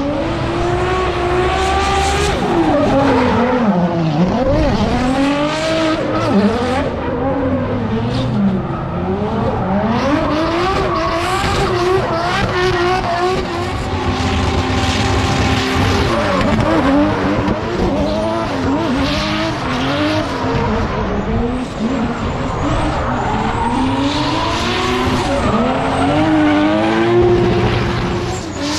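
Drift car's engine revving hard, its pitch climbing and dropping again and again as the throttle is worked, with tyre squeal and skidding as the car slides sideways through the corner.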